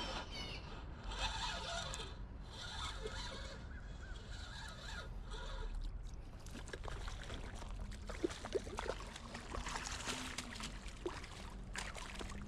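Faint water splashing and scattered clicks while a small hooked fish is reeled in and handled at the water's edge.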